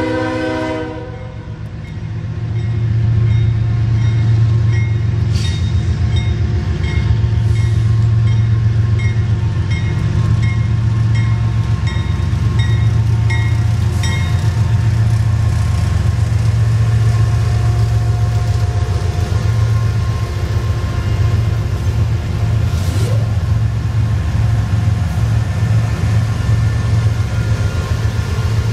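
A CSX freight train passing close: a horn blast cuts off about a second in, then the diesel locomotives' engines run with a heavy low rumble as they go by, while a bell dings steadily about twice a second for several seconds. Near the end the double-stack container cars start rolling past.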